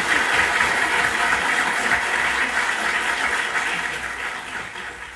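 Theatre audience applauding, swelling up at the start and slowly dying away near the end.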